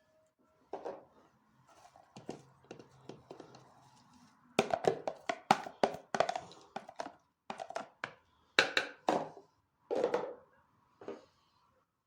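Kitchen handling sounds: a string of irregular knocks and clinks, sparse at first, then coming thick and fast for several seconds before thinning out near the end.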